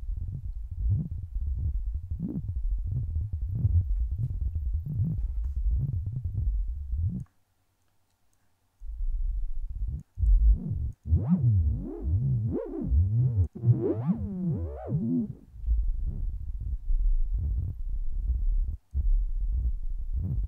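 Helm software synthesizer playing a deep bubbling tone, a low sound pulsing unevenly as LFOs and a step sequencer modulate it. It drops out for about a second and a half partway through. When it returns, the filter cutoff is swept up and down for a few seconds, so the resonance rises and falls in whooshing arcs, and then the sound settles back into low bubbling.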